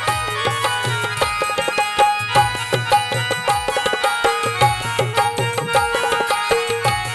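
Instrumental break in a Balochi folk song: an electronic keyboard plays a melody over a fast, steady drum rhythm whose low strokes slide down in pitch.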